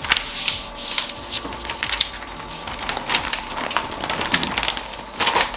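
Butcher paper rustling and crackling as it is folded over a brisket and pressed down by hand, with many sharp crinkles throughout.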